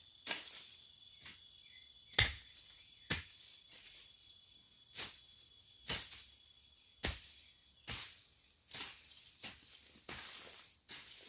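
Hoe chopping into dry, weedy soil, a sharp strike roughly once a second at an uneven pace.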